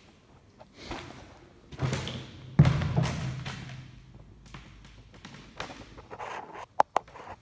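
A few dull thumps and knocks. The loudest comes about two and a half seconds in, with a short low ring after it. Faint clicks follow, then two sharp taps near the end.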